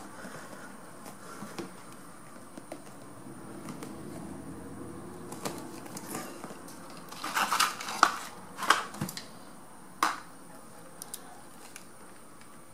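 Hands working a vinyl motorcycle seat cover over its pan: soft rubbing and rustling, with a cluster of sharp clicks and rattles about seven seconds in and a couple of single knocks shortly after.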